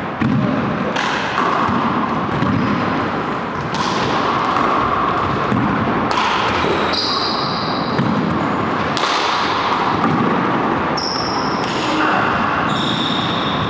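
A handball rally: the small rubber ball smacks off the walls and hardwood floor of the enclosed court every second or two, each hit echoing around the room. Short high sneaker squeaks on the floor come in between.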